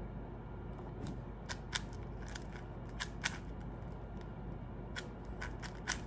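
Plastic 4x4 speed cube being picked up and turned by hand: irregular sharp clicks and clacks as its layers snap round, in two clusters with a lull of about a second and a half in the middle.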